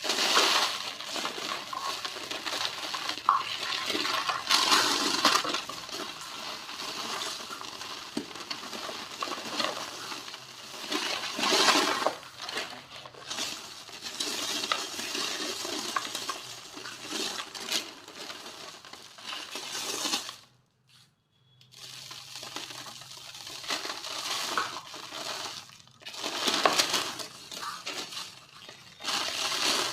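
Small dry white cement shapes being crumbled and crushed: crispy crackling and crunching with fine clinking bits, stopping briefly about two-thirds of the way through.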